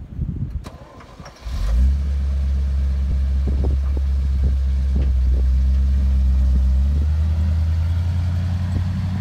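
1966 Chevrolet 60 grain truck's engine starting about a second and a half in, then running at a steady idle. Near the end its pitch rises a little as the engine picks up revs and the truck pulls away.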